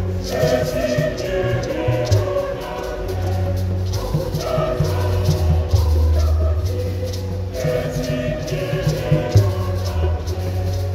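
Large mixed church choir singing a Luganda hymn in harmony, with a shaker keeping the beat and drum underneath.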